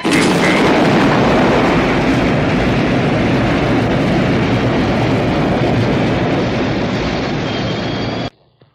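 Lift-off sound effect of an Eagle transporter's rocket engines: a loud, steady rushing noise that starts suddenly and cuts off abruptly about eight seconds in.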